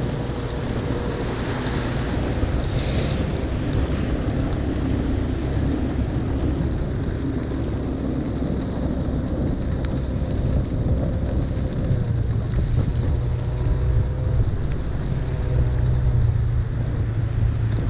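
Motor vehicle engines running under a continuous rushing noise. The low engine hum grows stronger about twelve seconds in.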